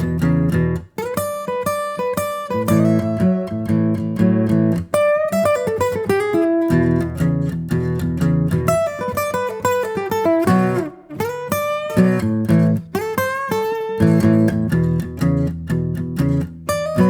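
Guitar music: plucked notes and chords over a low bass, in phrases with short breaks between them.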